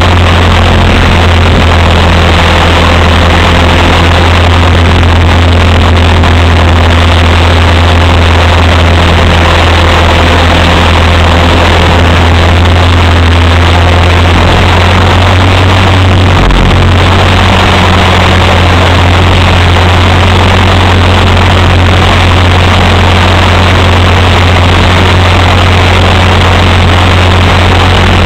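Align T-Rex 450 electric RC helicopter heard from its own onboard camera: a loud, steady drone of the main rotor and motor, with a brief dip in the low hum about halfway through.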